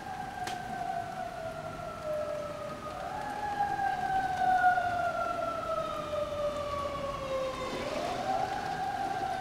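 Emergency vehicle siren wailing: each cycle rises quickly, then falls slowly over about four seconds, climbing again about three seconds in and near eight seconds. Steady rain hiss lies underneath, with one sharp click about half a second in.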